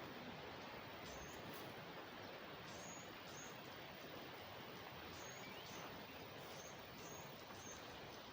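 Faint, steady rush of water flowing along an old irrigation canal, with a small bird's short high chirps repeated every second or so.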